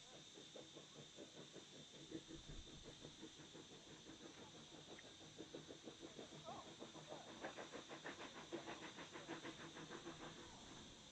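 Faint, rapid chuffing of a steam locomotive's exhaust as it works, several beats a second, growing stronger about halfway through.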